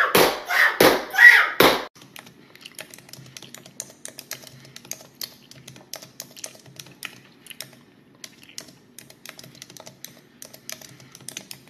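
Light, quick tapping like typing on a keyboard, faint and irregular, running on after a few loud bursts in the first two seconds.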